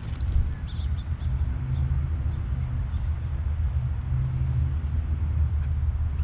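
Scattered short, high-pitched bird chirps over a steady low mechanical hum, which is the louder sound.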